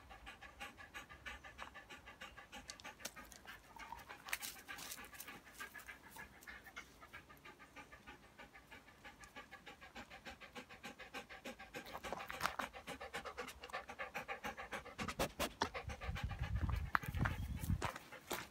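A Labrador retriever panting fast and evenly, close by. A louder low rumble comes in near the end.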